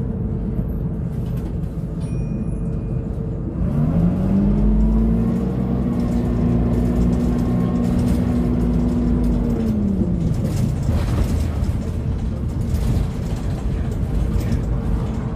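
Euro 3 Dennis Dart single-deck bus, heard from inside the saloon: the diesel engine revs up quickly about four seconds in and holds high revs for several seconds as the bus pulls away. The revs fall back near ten seconds. Under it runs the steady whine of the engine cooling fan running constantly, which enthusiasts call 'hoovering'.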